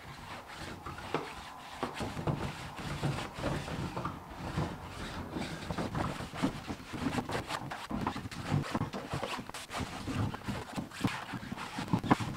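A clothes iron rubbed back and forth over Dacron fabric stretched on a wooden boat frame, the fabric scuffing and rustling under it in irregular strokes with small knocks. The heat is shrinking the Dacron tight and taking out its wrinkles.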